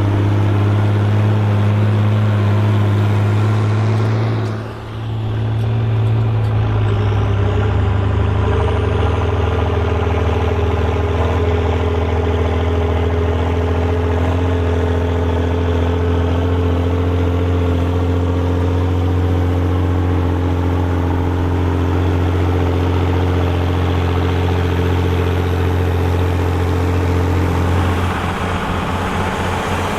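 Volvo BM tractor diesel engines running steadily under load while ploughing. The sound dips briefly about five seconds in and comes back with a different engine note, which changes again near the end.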